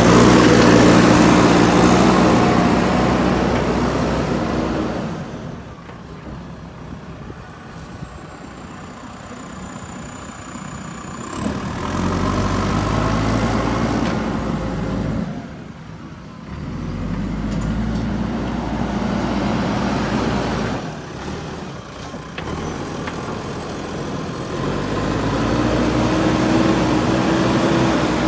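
JCB 3DX Super backhoe loader's diesel engine running as the machine works. It revs up and down in stretches: loud at the start, easing off for several seconds, then rising again in turns through the middle and toward the end.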